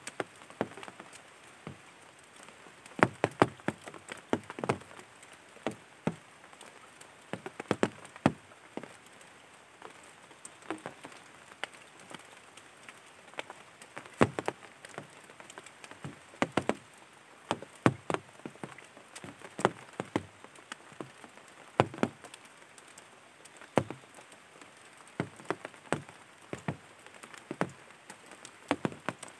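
Scattered sharp taps and drips at irregular intervals, sometimes one alone and sometimes a quick cluster of several, over a faint steady hiss.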